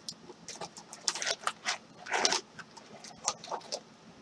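Foil trading-card packs and their cardboard box crinkling and rustling as the stack of packs is handled and pulled out of a Panini Contenders Draft Picks box, in a string of short, scratchy bursts.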